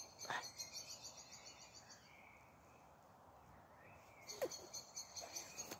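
Faint outdoor background with a bird's quick, rapidly repeated high chirping, in two runs: one at the start and another resuming about four seconds in after a quieter gap.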